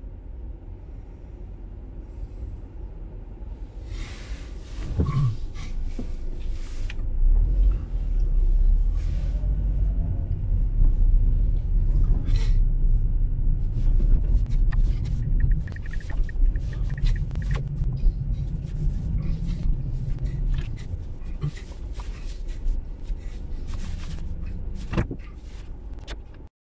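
Car driving, heard from inside the cabin: a low engine and road rumble that builds up over the first several seconds as the car gets under way, with scattered clicks and knocks. It cuts off suddenly just before the end.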